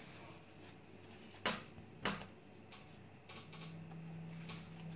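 Faint handling of a duck wing and tools on a table: two short sharp taps about half a second apart, then a faint steady low hum.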